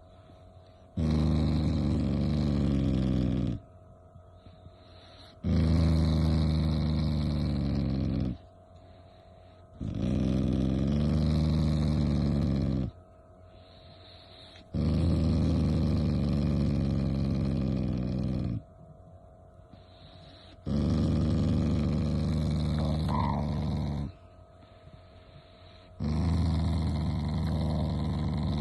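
A dog making long, low rumbling sounds, six in a row. Each lasts about three seconds and ends abruptly, with short pauses between.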